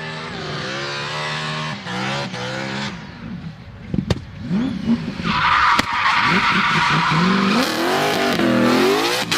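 R34 Nissan Skyline GT-R's turbocharged engine pulling hard. The revs climb and break off several times, with sharp cracks in between. About halfway through, a loud steady hiss joins in over the engine, the kind tyres make when they squeal or skid, and the revs rise again near the end.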